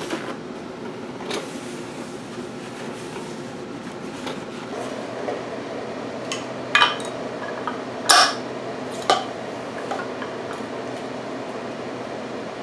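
Metal clinks and knocks of a disc brake caliper and its parts being handled and fitted at the front wheel, the loudest three coming close together past the middle, over a steady background hum.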